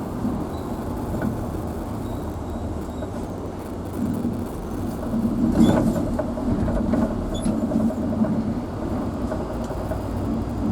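Vehicle engine and road rumble heard from inside the cabin while driving, steady and low, with a sharp knock about halfway through, as from a jolt on the road.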